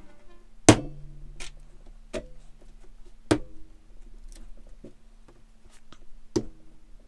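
Wooden-handled stamps knocking down onto paper on a wooden tabletop. Three sharp knocks, about a second in, near the middle and near the end, with lighter taps and handling sounds between. A faint steady hum runs underneath.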